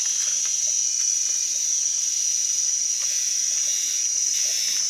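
Steady high-pitched chorus of insects, one unbroken tone.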